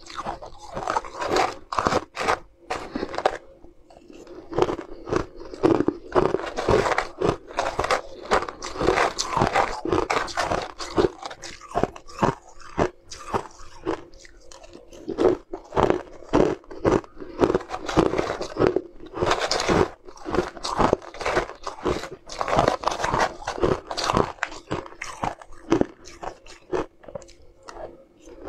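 Shaved ice with coloured frozen chunks crunching between the teeth as it is chewed spoonful after spoonful: a dense, irregular run of crisp crunches with brief lulls.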